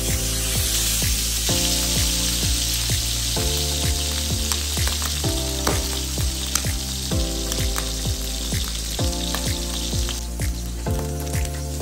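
Salmon steak sizzling in bubbling butter and oil in a frying pan, the sizzle falling away about ten seconds in. Background music with a steady beat plays under it.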